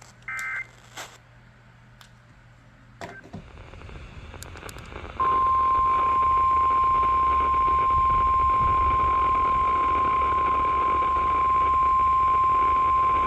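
NOAA Weather Radio receiver: a short digital data burst at the start, static hiss building up, then about five seconds in the 1050 Hz warning alarm tone comes on, a loud single steady tone that holds on, marking the weekly test of the radio warning system.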